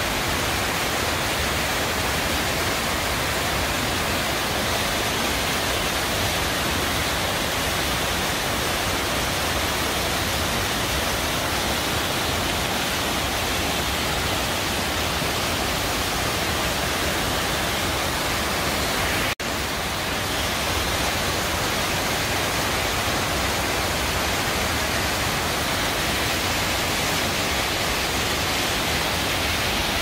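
Underground cave waterfall, more than ten metres high, pouring down a rock face: a loud, steady rush of falling water. A momentary cut in the sound comes about two-thirds of the way through.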